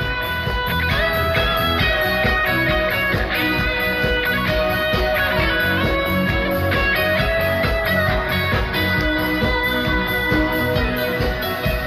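Live rock band playing an instrumental passage with no vocals: electric guitar and keyboards over a steady beat.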